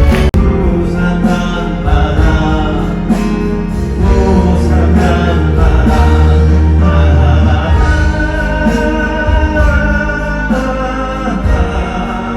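Music with singing, choir-like voices over a steady bass line, with a brief break about a third of a second in.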